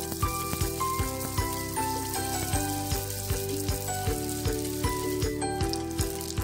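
Lumpia spring rolls sizzling as they fry in a pan of hot oil, over background music with a steady beat.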